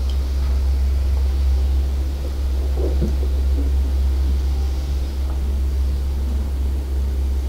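A steady low rumbling hum, with faint sounds of a man swallowing lager from a glass beer mug during the second half.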